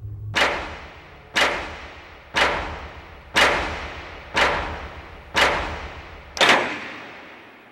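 Seven sharp, heavy impacts about a second apart, each dying away in a long echoing decay, the last one coming slightly late and the loudest.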